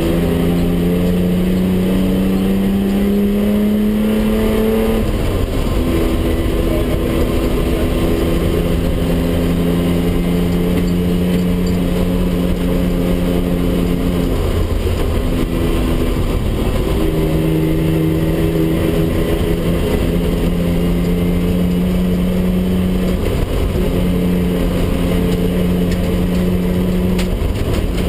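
BMW 320/6's 2.0-litre straight-six rally engine heard from inside the cabin, driven hard. Over the first five seconds the revs climb, then drop at a gear change. After that the engine holds steady revs in long stretches, broken a few times by short lifts and shifts, over a steady rumble of road and tyre noise.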